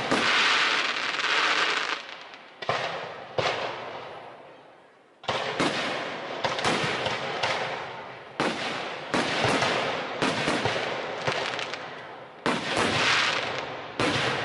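Aerial firework shells bursting one after another: about fifteen sharp bangs, each fading away over a second or so, with a short lull around four to five seconds in.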